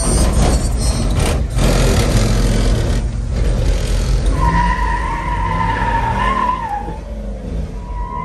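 Car doing a burnout: the engine runs hard and the tyres spin. A high, wavering squeal is heard from about four and a half seconds in until near seven seconds.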